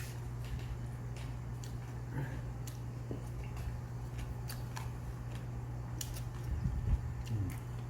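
Eating at a table: scattered soft clicks of chopsticks and a spoon against dishes, with chewing, over a steady low hum. A few duller knocks come about two-thirds of the way through.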